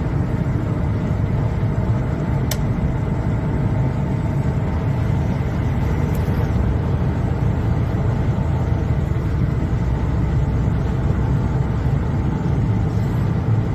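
Steady engine and tyre rumble heard inside the cabin of a moving car, with one brief click about two and a half seconds in.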